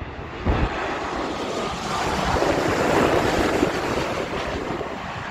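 Twin-engine widebody jet airliner passing low overhead on final approach with its landing gear down. Its engine noise swells to a peak about three seconds in, then eases off, with wind on the microphone.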